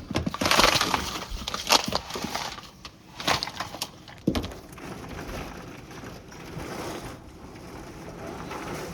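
Storm wind gusting hard across the microphone in loud, crackling bursts over the first few seconds, then settling into a steadier rush of wind.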